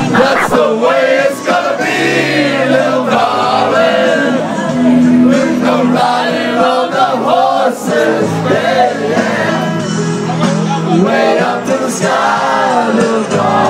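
A song playing, with men's voices singing over backing music.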